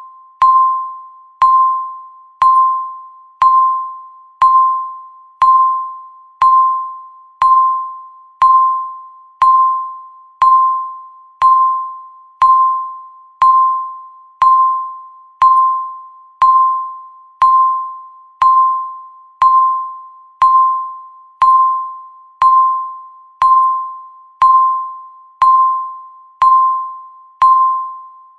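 Countdown timer's electronic beep, one clear single-pitched tone once a second, each starting sharply and fading away before the next.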